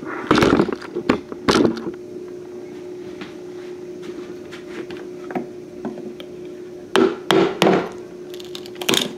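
Wood being chipped and split out of a freshly sawn round hole with a chisel: sharp knocks and splintering cracks of wood. Two strokes come near the start, then a quick run of three followed by one more near the end.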